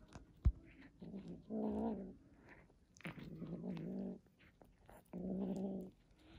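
A kitten growling while it eats: three steady low growls, each under a second long, the sound of a kitten guarding its food. There is a short thump about half a second in.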